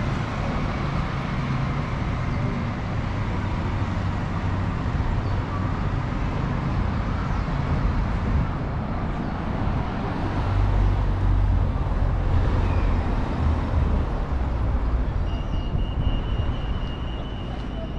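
Wind buffeting the microphone with a heavy low rumble, mixed with road traffic noise, the rumble swelling about halfway through. A thin, steady high tone comes in near the end.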